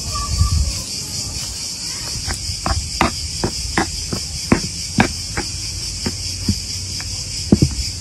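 Steady high insect chorus of crickets chirring. Over it, from about two seconds in, a metal spoon knocks and scrapes in a bowl of stuffing: about a dozen sharp irregular clicks.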